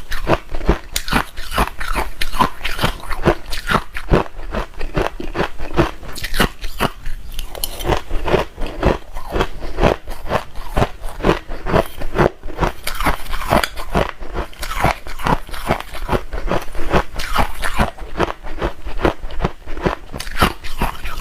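A person biting and chewing hard ice close to the microphone: fast, sharp crunching, several cracks a second without a break.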